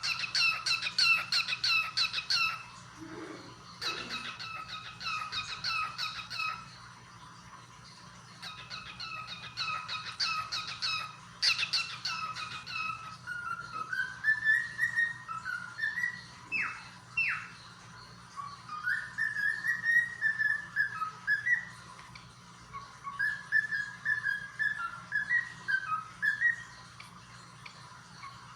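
Cockatiel singing. It starts with runs of quick, repeated chirping notes, then turns to clear whistled phrases that rise and fall in pitch, broken by two quick downward sweeps.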